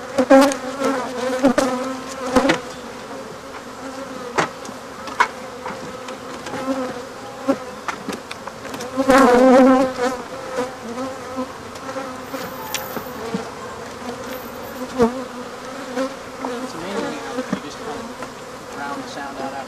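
Swarm of Africanized honey bees buzzing steadily, swelling louder for about a second around nine seconds in, with a few sharp knocks scattered through.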